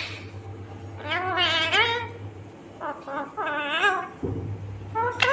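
Indian ringneck parakeet vocalising: a string of high-pitched, wavering, voice-like calls, one long call followed by several shorter ones.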